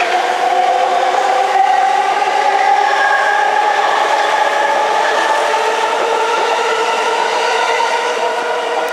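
Yamanote Line E231-500 series electric train pulling out of the platform. Its traction motors give a steady whine that rises slowly in pitch as it gathers speed, over the rumble of wheels on rail, and it eases off a little near the end.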